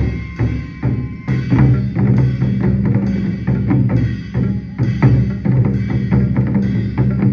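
Taiko ensemble drumming: wooden sticks striking large barrel-shaped taiko drums in a fast, driving rhythm of about four strikes a second, with a deep low boom beneath the sharp hits.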